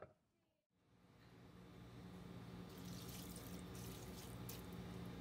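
After a moment of silence, kitchen background sound fades in: a steady low hum with a faint hiss. A few light rustles come in the middle.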